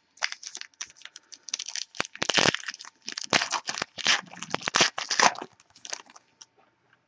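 Plastic wrapper of a 2014 Donruss baseball card pack crinkling and tearing as the pack is opened: a quick, irregular run of crackles that thins out near the end.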